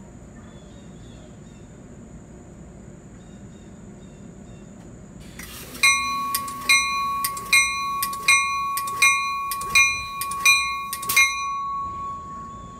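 A railroad bell ringing about eight times, one strike every three-quarters of a second, starting about six seconds in and stopping near the end.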